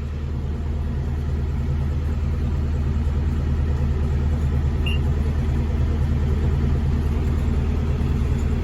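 Tractor engine running steadily at a constant speed, a low even drone that starts abruptly.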